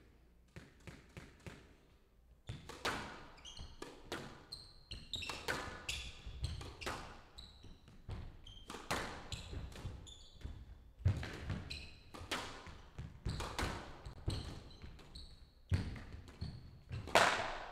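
Squash rally: the sharp smacks of racket on ball and ball off the front wall and glass side walls come every half second to a second, with short high squeaks of court shoes on the wooden floor. Before it, a few light taps of the ball bounced by the server. The hardest smack comes near the end.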